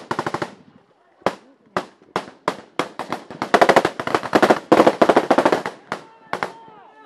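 Military small-arms gunfire in a firefight: a fast automatic burst at the start, then single shots about every half second, then heavy overlapping automatic fire in the middle, thinning to a few scattered shots near the end.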